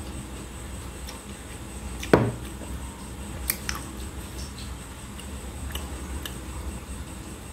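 Eating by hand from a ceramic plate: fingers scraping and tapping on the plate, with mouth sounds of chewing. There are scattered small clicks, and one sharper, louder one about two seconds in.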